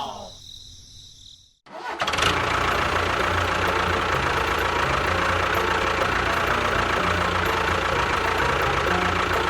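An engine-like motor sound starts about two seconds in, after a brief silence, and runs steadily with an uneven low pulse.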